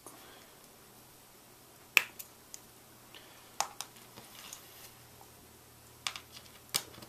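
Sharp clicks and snaps as pliers squeeze pivot balls into black rod ends, each ball popping into its socket. The loudest snap comes about two seconds in, with a few lighter clicks after it and another quick cluster near the end.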